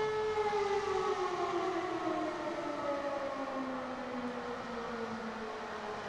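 E57 electro-mechanical siren winding down after a held tone, its pitch falling steadily as the rotor slows, at the end of a fire brigade alarm.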